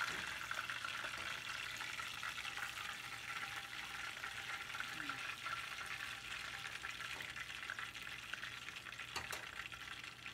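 Whole fish deep-frying in a pot of hot oil: a steady crackling sizzle with scattered pops and clicks, and one sharper click about nine seconds in.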